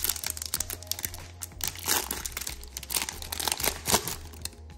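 Foil wrapper of a Panini Chronicles basketball card pack crinkling and crackling as it is torn open by hand, with one sharp loud crackle just before the end.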